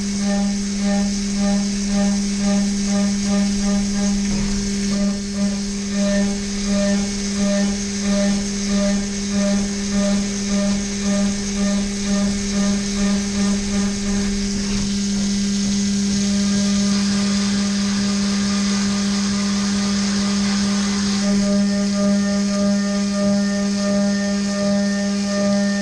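Haas VF3-SSYT CNC vertical mill roughing with an end mill at 800 inches per minute. A steady high spindle tone runs under a whine that pulses about twice a second as the cutter loads and unloads along the toolpath. The pulsing quickens partway through, holds steady for several seconds, then pulses again near the end.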